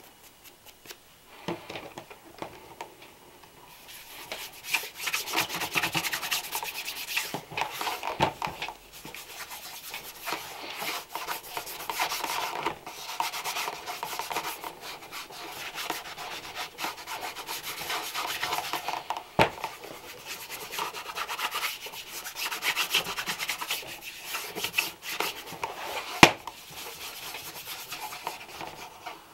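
Brush scrubbing back and forth over a leather shoe in quick, rough strokes. Two sharp knocks come near the end.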